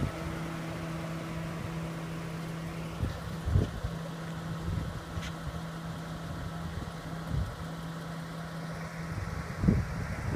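2014 Ford Mustang's 3.7-litre V6 idling steadily, a constant low hum. Two dull thumps stand out, one about three and a half seconds in and one near the end.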